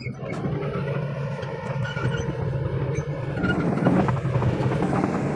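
Kobelco hydraulic excavator's diesel engine, heard from the operator's cab, picking up right at the start and then running steadily under load as the machine moves.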